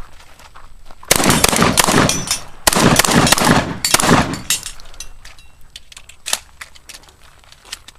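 Shotgun firing a rapid string of shots in two dense bursts about a second to four and a half seconds in, then a lone shot near six seconds.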